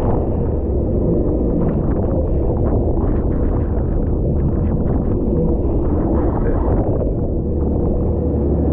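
Yamaha WaveRunner jet ski engine running steadily at speed over choppy water, with wind buffeting the microphone and water splashing against the hull.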